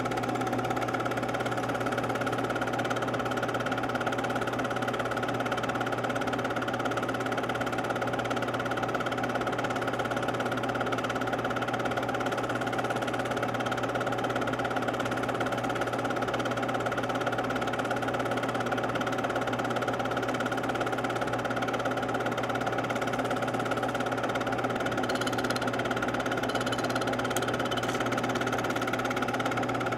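Steady whirring hum of a film projector's motor and mechanism running while the home-movie reel plays, holding the same pitch and level throughout.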